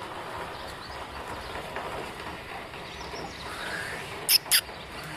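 Outdoor ambience with small birds chirping faintly, and two short, sharp sounds in quick succession about four seconds in.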